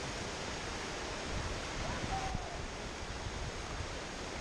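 Steady rush of whitewater churning through a rapid on a small river running high.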